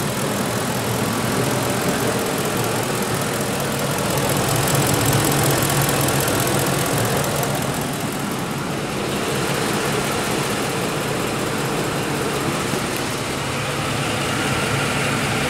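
Ford 5.4-litre 3-valve Triton V8 idling steadily, running quietly on newly replaced cam phasers, with only the fuel injectors' tick left.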